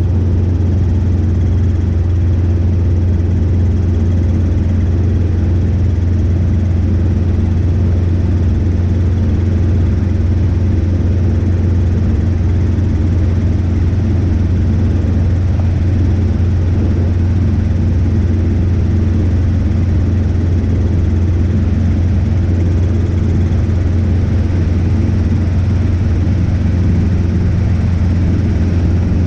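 Robinson R22 helicopter in steady forward flight: the constant drone of its piston engine and rotors, dominated by a strong low hum that does not change.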